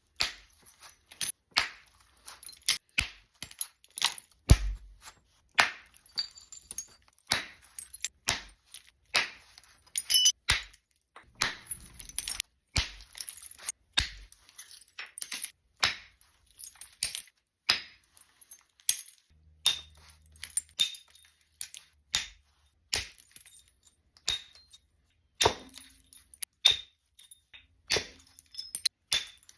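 Flintknapping: a percussor striking a Georgetown flint blank again and again, each blow a sharp, glassy click as flakes come off, at an uneven pace of about one to two strikes a second.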